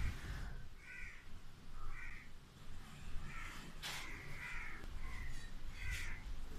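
Crows cawing repeatedly, roughly one call a second, over a low background rumble.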